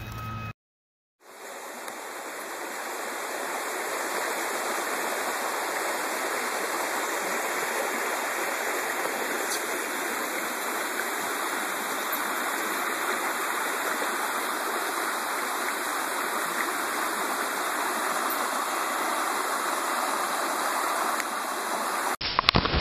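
Shallow stream water flowing and rippling in a steady rush, fading in about a second in after a brief silence.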